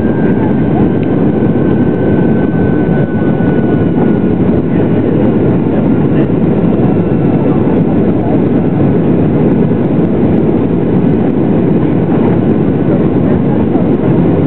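Boeing 737-800's CFM56-7B turbofan engine and airflow, heard inside the cabin during the climb after takeoff: a loud, steady, deep roar. A faint high whine slides slowly lower over the first few seconds.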